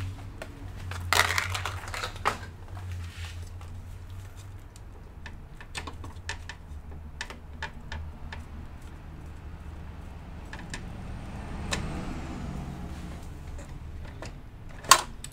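Scattered plastic clicks and knocks as the PCIe power connectors are unplugged from a graphics card and the card is pulled from its motherboard slot. One louder sharp click comes near the end, over a low steady hum.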